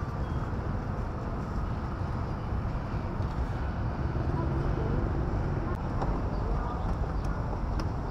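Busy street-market ambience: a steady wash of traffic noise with indistinct voices mixed in.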